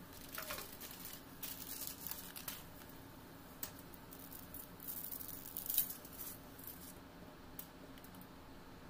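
Dry spaghetti being handled and dropped into a pot of boiling water: several short bursts of crisp crackling and rustling, the loudest a little past the middle, over a faint steady hum.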